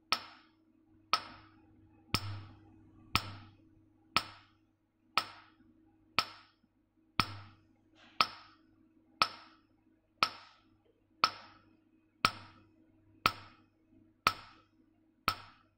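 Nd:YAG laser handpiece firing one pulse a second onto carbon gel on the skin, each pulse a sharp snap as the carbon layer is blasted off; about sixteen evenly spaced snaps over a low steady hum.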